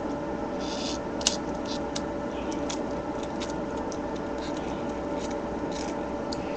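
Small plastic clicks and brief scrapes from a toy solar walker being pried and twisted apart by hand, with one sharper click about a second in.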